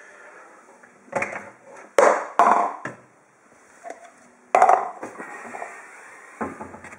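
A few sharp knocks and clatters of things being handled, with the loudest about two seconds in and again at four and a half seconds.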